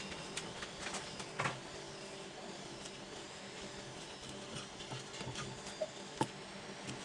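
A knife knocking on a chopping board a few times at irregular intervals while goose organs are cut, over a steady low hum. The loudest knocks come about one and a half seconds in and near the end.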